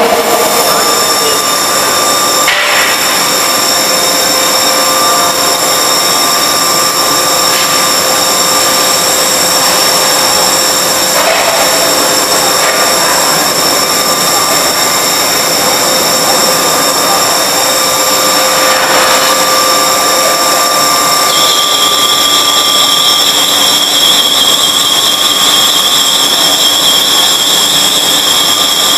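Forging-shop machinery running steadily and loudly, with a constant noise and several high, steady whines. Another high whine joins about three quarters of the way through. A few faint knocks sound now and then.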